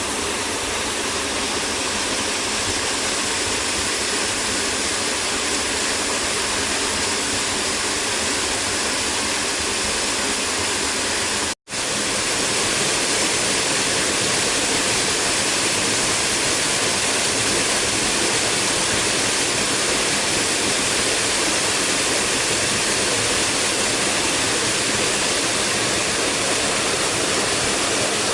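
Waterfall rushing steadily, a dense even roar of falling water. It cuts out for an instant about twelve seconds in and resumes slightly louder.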